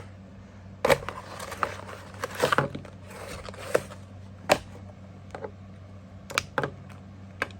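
A taped package being opened by hand: tape peeling and packaging rustling in short stretches, with several sharp clicks and taps.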